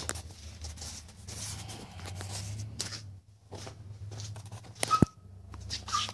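Handling noise from the camera being picked up and moved by hand: uneven rubbing, scraping and clicking on the microphone, with a sharp knock about five seconds in.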